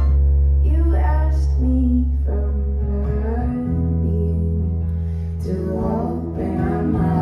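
Live folk band music: a woman singing over acoustic guitar and a bass guitar holding long low notes.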